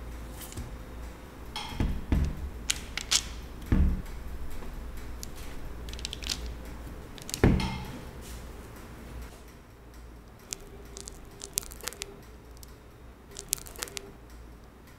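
Cookie dough pieces being handled on a parchment-lined metal baking tray: scattered soft taps, clicks and paper rustles. There are a few louder thuds about two, four and seven and a half seconds in, and lighter ticks near the end.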